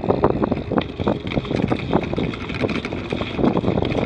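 Wind buffeting the microphone of a camera on a bicycle riding at about 25 km/h: a loud, uneven rumble that comes in gusts.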